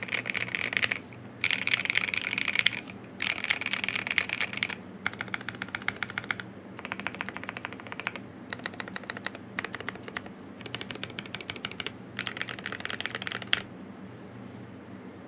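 Typing on a Mon1 Alice-layout custom mechanical keyboard with Tecsee Carrot switches on a carbon-fibre plate and XDA keycaps: rapid runs of key clacks in bursts of a second or two with short pauses between, stopping a little before the end.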